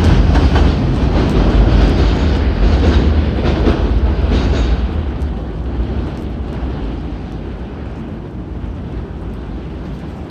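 Strong storm wind gusting and buffeting the microphone in a deep, heavy rush. It eases off about halfway through to a lower, steadier rush.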